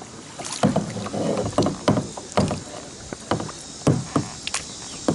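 Double-bladed kayak paddle dipping into the water in uneven alternating strokes, each one a short splash, roughly one or two a second.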